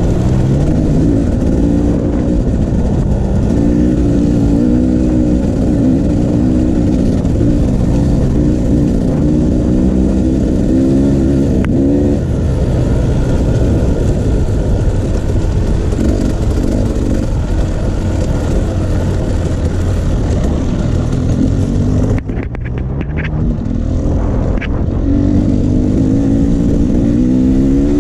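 Dirt bike engine being ridden on a trail, its revs climbing and falling again and again as the rider works the throttle through the gears. Near the end it briefly drops off the throttle, then picks up again.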